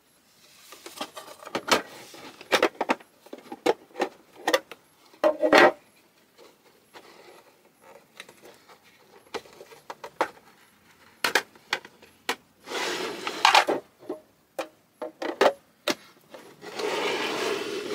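Clear plastic display cases being handled: irregular sharp clicks and knocks as the stacked cases are pulled apart and set down on a table, with a few brief scraping rubs.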